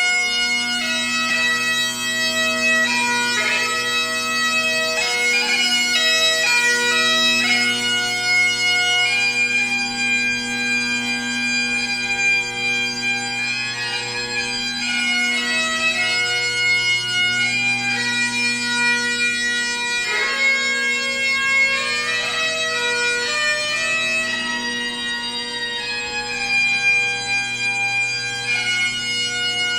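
Great Highland bagpipe playing a slow tune: a melody of changing chanter notes over the steady, unbroken drone.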